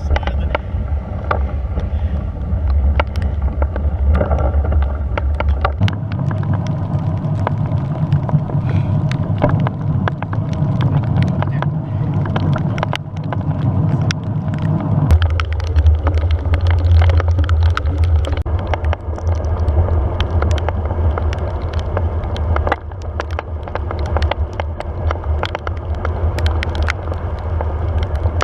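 Steady low rumble of wind and road noise while moving, scattered with many small clicks and rattles. The sound shifts abruptly about six seconds in and again about fifteen seconds in.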